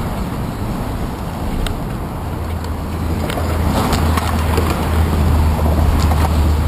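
Wind and road-traffic rumble on a bicycle's handlebar-mounted camera, growing louder about halfway in, with scattered light clicks and rattles from the bike.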